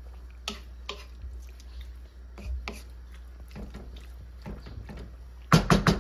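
Wooden spoon stirring chopped pork and onions in a wok, with scattered scrapes and light clicks against the pan and a quick run of three or four louder knocks near the end.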